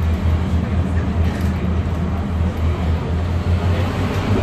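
Cabin noise inside a moving Class 142 Pacer diesel railbus: the steady low drone of its underfloor diesel engine over wheel-and-rail rumble. The engine note drops slightly near the end.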